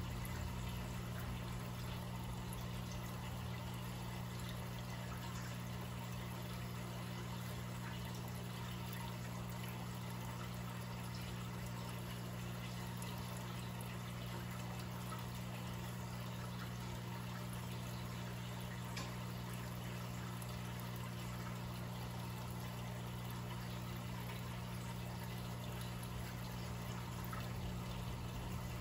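Aquarium filter and air stone running: a steady trickle and bubbling of water over a constant low pump hum.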